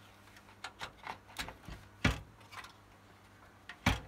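Small clicks and taps of hardware being handled in a computer case as a PCI Wi-Fi card is fitted, with two louder knocks, one about two seconds in and one near the end.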